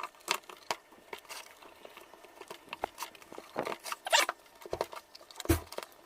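Handling sounds of a 48 V electric-bike battery pack being fitted into its casing: scattered clicks, light knocks and rustling, with one heavier thud about five and a half seconds in.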